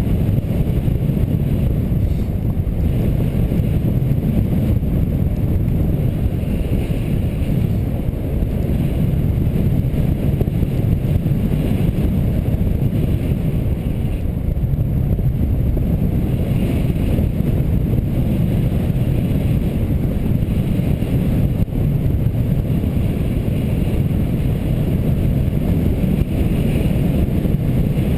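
Airflow buffeting the camera microphone during a paraglider flight: a steady, heavy low rush of wind.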